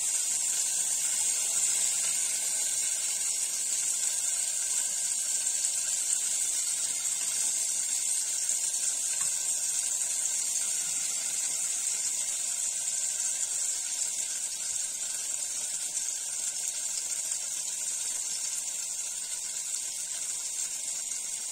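Steady high hiss from a gas hob, its burner turned down low under a pot, easing slightly in loudness toward the end.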